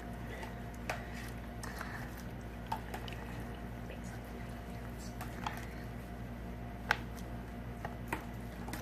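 Thickening slime being stirred with a spoon in a bowl: soft wet squishing with scattered sharp clicks, the loudest about seven seconds in. The slime is stiffening and turning chunky as the borax activator takes hold.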